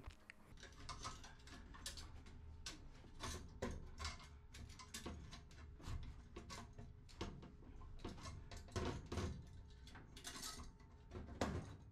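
Faint, irregular clicks and scrapes of hand tools working on the aircraft fuel pump assembly as the AN525 screws are taken out of the bulkhead.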